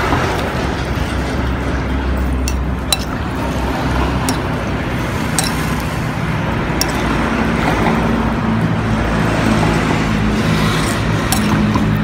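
Metal spoon stirring a bowl of noodle soup, with a few sharp clinks against the bowl, over a steady low rumble.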